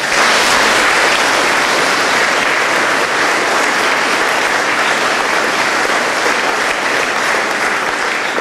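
Congregation applauding; the clapping starts suddenly and holds steady and full.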